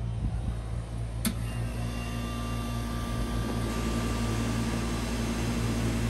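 Carrier TECH 2000 heat pump outdoor unit starting up: a sharp click about a second in, then its Tecumseh compressor comes on with a steady hum that joins the drone of neighbouring units already running.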